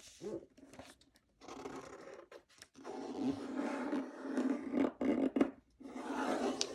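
A sheet of printer paper folded in half and creased, fingers rubbing and scraping along the fold in several strokes with short pauses between them.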